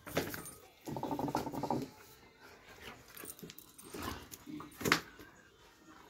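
Doberman pinscher at very close range making a low, rough sound lasting under a second, about a second in. Sharp knocks come at the start and twice more near the end.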